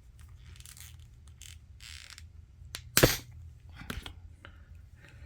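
Plastic ankle joint of an action figure snapping under twisting force: one sharp crack about three seconds in, then a smaller click about a second later, among faint rustles of the parts being handled. The peg breaks off inside the joint.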